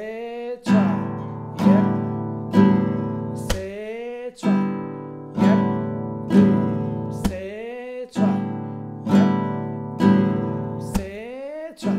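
Nylon-string classical guitar played in a steady two-four strumming rhythm. There is a stroke about every second, each left to ring, and the pattern repeats every four strokes.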